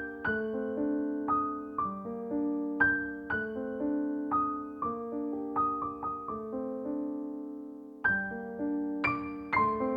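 Background music: a gentle piano or electric-piano tune, single notes struck over held chords.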